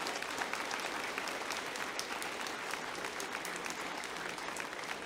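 Large audience applauding, a steady dense clapping that eases slightly toward the end.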